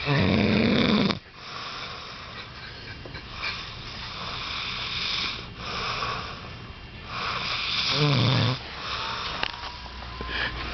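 A drunk man snoring heavily in his sleep. There is a loud low snore at the start and another about eight seconds in, with noisy breathing between.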